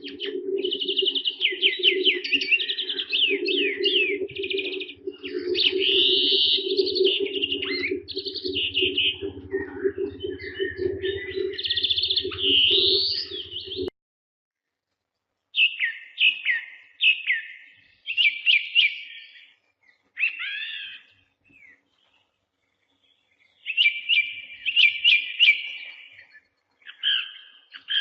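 Birds chirping and trilling in quick, high phrases over a steady low hum. Both stop abruptly about halfway. After a short silence the chirping resumes in separate bursts with pauses between them.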